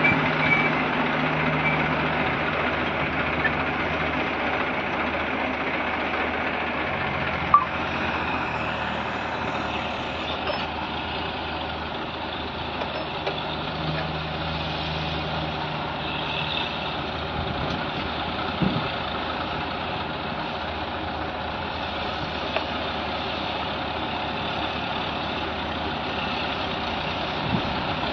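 Diesel engines of a Massey Ferguson 1035 DI tractor and an excavator running steadily, with one sharp knock about seven and a half seconds in.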